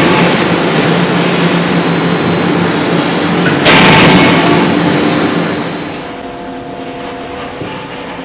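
Closed-die forging hammer machinery running loud and steady with a low hum, with a sudden loud hissing burst about halfway through; the noise then drops off to a quieter running level.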